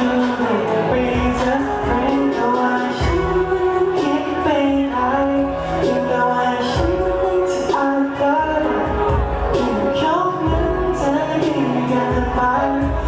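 A pop song performed with a band: a singer's melody over sustained chords and a steady drum beat.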